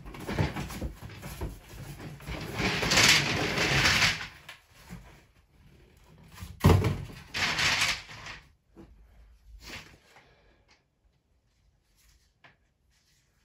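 Cardboard box being handled and scraped while black plastic Playmobil track sections are unpacked, with a sharp knock about halfway through and a few faint clicks of plastic pieces near the end.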